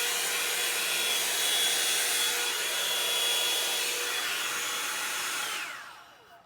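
Revlon One Step paddle-brush hair dryer running with a steady rush of air and a motor whine, then switched off about five and a half seconds in, its whine falling in pitch as the motor winds down.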